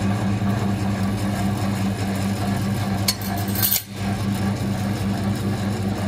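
Steelmaster SM-L20N lockseamer running with a steady electric hum as its six-station forming rolls draw a galvanised sheet through to roll a C cleat profile. A short click and a brief high metallic scrape come just past the middle.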